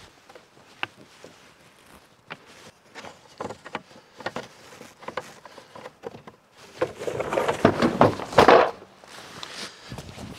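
Scattered clicks and knocks of straps and fittings on a vehicle-mounted side awning being undone. About seven seconds in comes a loud rush of rustling canvas lasting about two seconds as the awning is unrolled from its cover, then a few light ticks.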